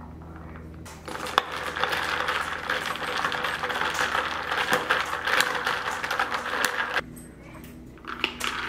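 Ice cubes clinking and rattling against a glass mason jar as iced coffee is stirred with a straw, starting about a second in and stopping abruptly about seven seconds in.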